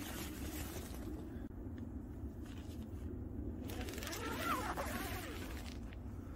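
Nylon tent fabric and a down sleeping bag rustling and scraping as someone settles into a small tent, with a scratchier stretch a little after the middle. Under it a steady low background rumble.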